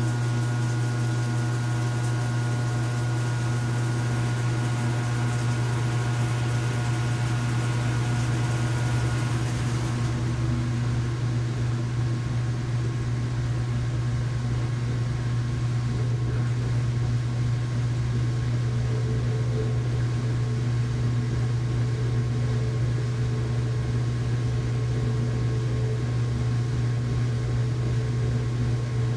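Household washing machine running in its rinse cycle: a steady low mechanical hum. A faint high tone and some of the hiss drop away about a third of the way through.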